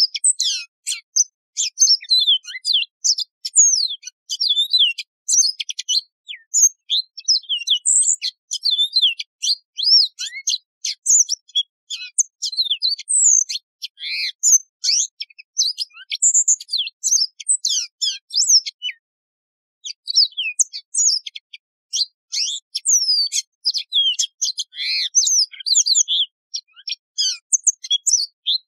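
Yellow-fronted canary (Mozambique serin) singing a fast, run-on song of high chirps, slurred whistles and trills, with a short break about two thirds of the way through.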